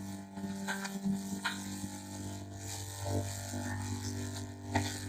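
Microwave oven running: a steady electrical hum with a few faint knocks.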